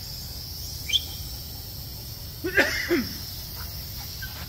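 A dog giving two short, loud barks about two and a half seconds in, after a brief chirp about a second in, over a steady high-pitched background hiss.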